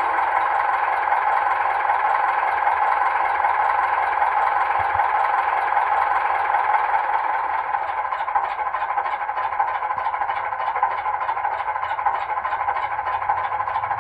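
Model Ruston 48DS diesel shunter's sound decoder (Zimo MX648R) playing the engine idling steadily through a tiny sugar cube speaker, thin and without bass. A regular beat of about three a second stands out from about eight seconds in.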